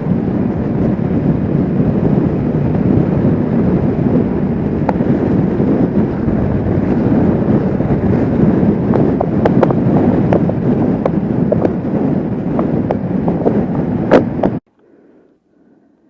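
Wind rushing over a motorcycle rider's microphone at speed, mixed with the Kawasaki Vulcan S 650's engine and road noise, with scattered sharp clicks in the second half. It cuts off abruptly near the end, leaving only faint sound.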